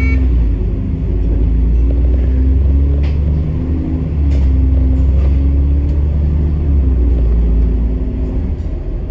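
Bus engine and road rumble heard from inside the cabin: a loud, deep, steady drone whose engine note shifts slightly up and down, with a couple of faint clicks, easing off a little near the end.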